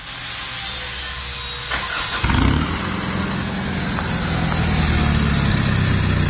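Nissan Navara engine starting about two seconds in with a brief flare, then idling steadily through a full straight-through exhaust with no resonator and a short side-exit tip.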